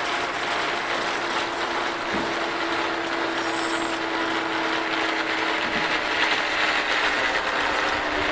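Zip-line trolley pulleys running along the steel cable: a steady whirring hum over a constant hiss.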